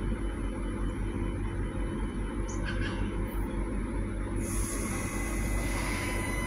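Adelaide Metro 3000/3100 class diesel railcar idling at the platform with a steady low hum. About four and a half seconds in, a hiss of air starts, and steady whining tones join it near the end as the railcar gets ready to pull away.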